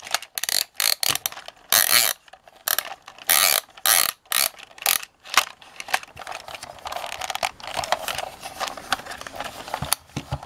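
Hard plastic parts of a 1985 Kenner Droids Side Gunner toy clicking, rattling and scraping in the hands as the side gun pod is worked loose. Quick irregular clicks and short scrapes for the first half, then a steadier rubbing scrape.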